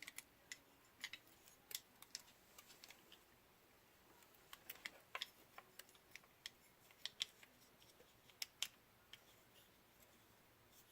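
Faint, irregular small clicks and ticks of the small parts of a drone's camera being handled and fitted together by hand, a few at a time, with short gaps between them.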